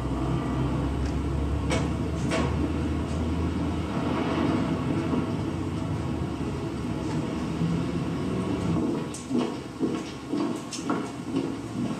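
A steady low rumble of street traffic. After about nine seconds it drops away and a few scattered knocks and thumps follow.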